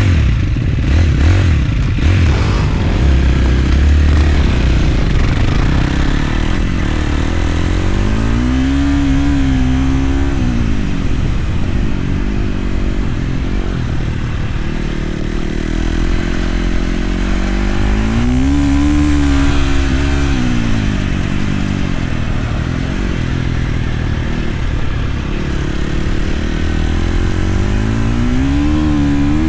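Flat track motorcycle engine on a dirt oval, its pitch climbing as the throttle opens and falling as it shuts off, three times about ten seconds apart, over a steady low rumble.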